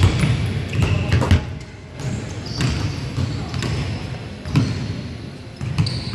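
Basketball bouncing on a hardwood gym floor, a few irregular thuds, with short high squeaks of sneakers on the floor and some players' voices.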